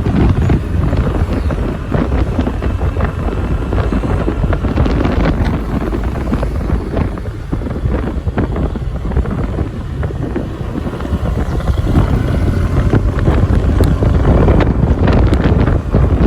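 Loud wind buffeting the microphone on a moving Honda Click 125i scooter, with the scooter's running and road noise underneath.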